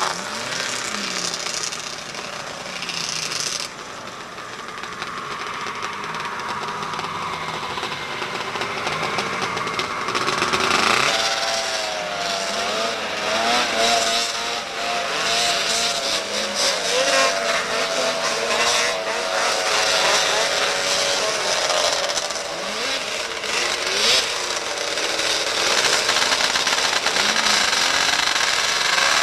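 Vintage two-stroke racing snowmobile engines running and revving, their pitch rising and falling, growing louder about eleven seconds in.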